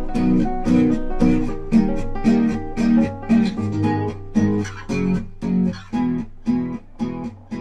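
Background music: a guitar strumming chords in a steady rhythm, about two strokes a second, fading down over the last few seconds.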